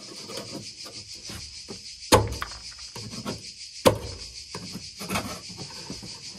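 Brittle, dried-out plastic fasteners snapping as they are pried off a van's interior panel: two sharp loud snaps a little under two seconds apart, with smaller clicks and scrapes between. A steady high insect chirring runs underneath.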